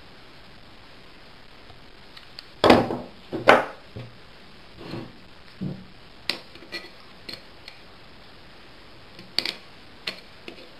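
Pliers and a carburettor float assembly clinking and tapping while the float tang is bent by hand: two sharp metallic knocks about a second apart a couple of seconds in, then scattered lighter clicks and taps.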